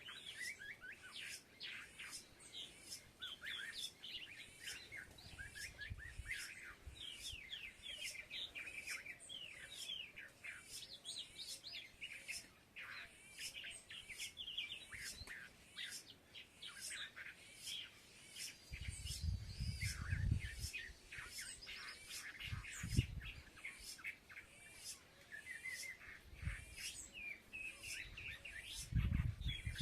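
A flock of small birds chirping and twittering continuously, many short overlapping calls. Low dull rumbles come in briefly about two-thirds of the way through and again near the end.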